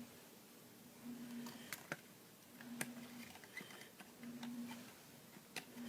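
Light plastic clicks and taps as a replacement microwave control panel is handled and set into place, with a low hum that comes and goes about every second and a half.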